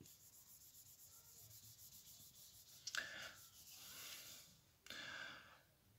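Handheld board eraser wiping marker writing off a board: faint scratchy back-and-forth rubbing, then three louder wipes in the second half.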